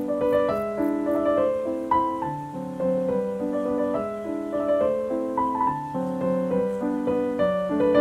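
Background piano music: a steady run of held notes and chords.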